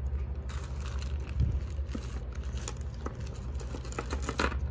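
Small electronic components tipped out of a clear plastic bag onto a tray: the bag crinkling and the loose parts clicking and jingling as they fall, busiest near the end. A steady low hum runs underneath.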